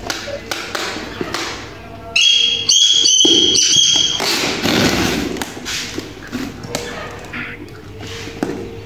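Packing and handling noises: scattered taps and thumps, with a shrill squeal about two seconds in that goes on for roughly two seconds in several short pulls.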